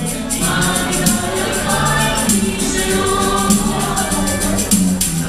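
Background music: several voices singing together over a steady beat with regular high, tambourine-like hits.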